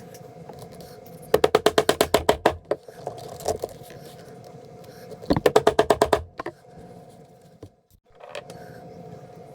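A machine's steady hum with two bursts of rapid, loud clicking, about a dozen clicks a second, one starting over a second in and one in the middle; the hum briefly drops out near the end.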